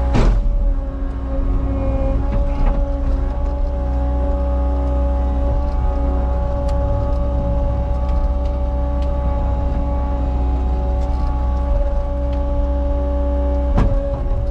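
Cat 279 skid steer's diesel engine running steadily under work, with a steady high whine over the engine note. A short clank comes just after the start and another near the end.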